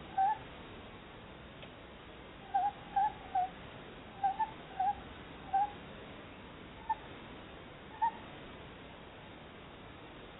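Tawny owls chattering to each other in short calls, about ten in all. The calls come close together in the first half, then thin out to two single calls.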